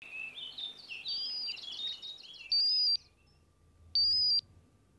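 Birds chirping in a quick run of short twittering notes, then an electronic desk telephone ringing: two loud, high, steady beeps of about half a second each, roughly a second and a half apart.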